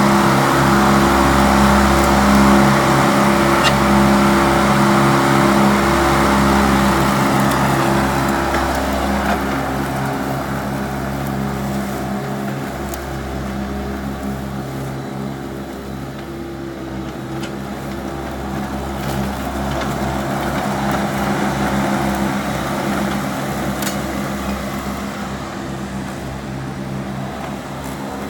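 Engine of a Toro 3500 all-wheel-drive golf course mower running steadily. It is loudest for the first several seconds, eases off gradually, then grows louder again a little past the middle.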